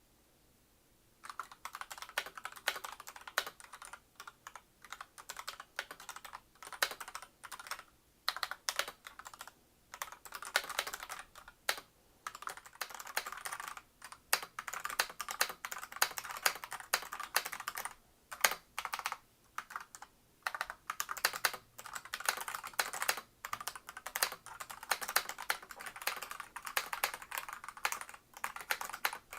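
Typing on a hot-swap KF068 mechanical keyboard fitted with Akko Black linear switches: fast runs of key clicks and clacks starting about a second in, broken by short pauses.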